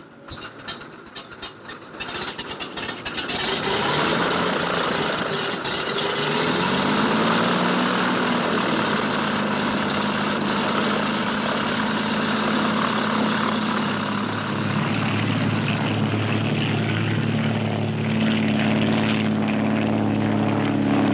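Floatplane's radial piston engine catching with uneven sputtering pops, then settling into a steady run within a few seconds. Its pitch rises a few seconds later as it is throttled up, and it then runs steadily at power.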